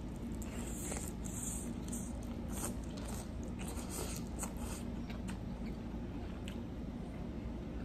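Close-up eating sounds of fried chicken dipped in a creamy sauce: biting and wet chewing, with irregular short smacks and clicks, over a steady low hum.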